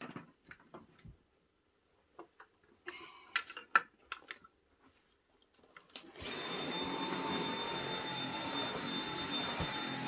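A few knocks and clicks of handling, then about six seconds in a cordless stick vacuum switches on and runs steadily with a high whine.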